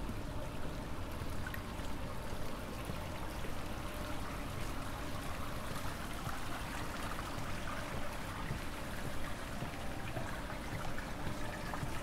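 Steady rush of rain and running water.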